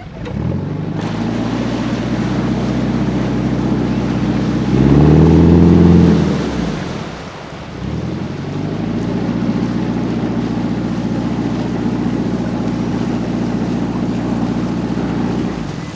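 Inboard engine of an old Dutch sailing barge running under way. It revs up briefly about five seconds in, eases back, then runs steadily before dropping away near the end.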